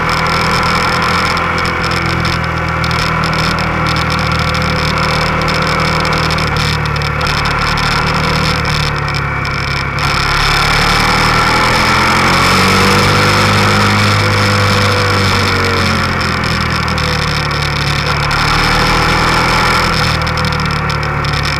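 Motorcycle engine running while riding, over a steady rush of wind on the microphone. The engine note rises about ten seconds in and falls back a few seconds later, then climbs again near the end.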